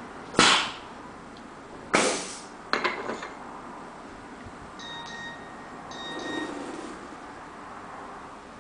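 Hard clacks of a clamp bar and fittings being set down on the black grooved catheter tray of a heat-set machine: one sharp knock, a second about a second and a half later, then a quick cluster of smaller clicks.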